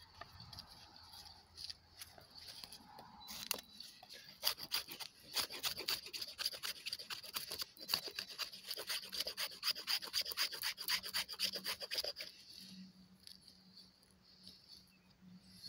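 A knife blade shaving down a wooden stick to make kindling, with rapid repeated scraping strokes. The strokes start about three and a half seconds in and stop near the end, leaving quieter rustling.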